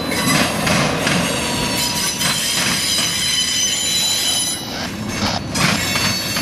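Freight cars of a CSX train rolling through a railroad diamond crossing, the wheels clattering and banging over the crossing frogs. A high, steady wheel squeal sounds through it.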